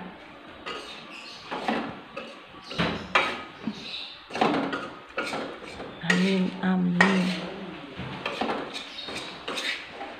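Metal spatula scraping and clinking against a stainless steel wok, in irregular strokes, as grated coconut is stirred and dry-fried for serundeng.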